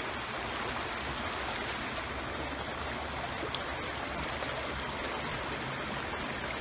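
River water flowing steadily, an even rush.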